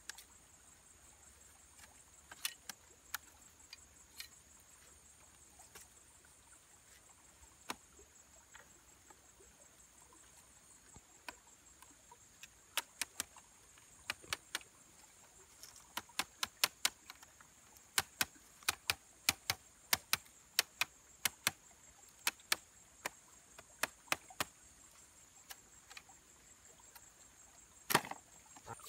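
Sharp clicks and taps of split bamboo strips knocking together as they are fitted into a handmade bamboo fish trap. A few at first, then coming about one to two a second for much of the second half, with one louder knock near the end, over a steady high-pitched hum.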